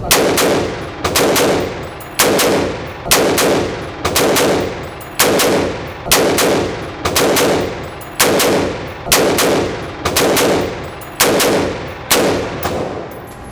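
AR-15 rifle fired semi-automatically at a steady pace, about thirteen shots roughly one a second, each with a short echoing tail.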